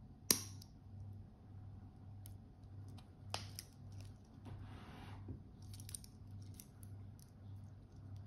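Stainless steel watch bracelet and folding deployant clasp being handled: a sharp metallic click about a third of a second in, as the clasp snaps shut, then another click about three seconds in. After that comes a short rustle and a few light clinks of the metal links, over a faint low hum.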